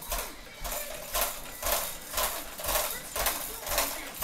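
A baby bouncing in a stand-type activity jumper, its frame and hanging toys rattling with each bounce, about two bounces a second.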